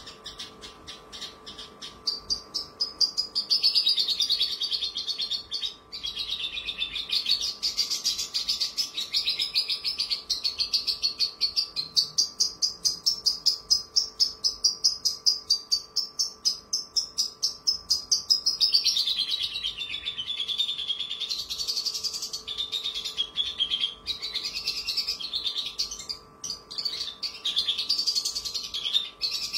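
Javan bush lark (branjangan) singing a long, varied, high-pitched song of fast trills and rapidly repeated notes, growing louder about two seconds in.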